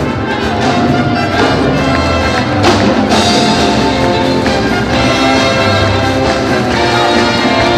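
Brass-led band music with trumpets and trombones over a steady rhythm section, with a sharp accent about two and a half seconds in.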